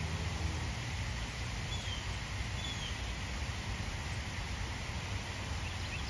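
Steady outdoor background noise with a few faint, short, high bird chirps, two of them about two seconds in and more near the end.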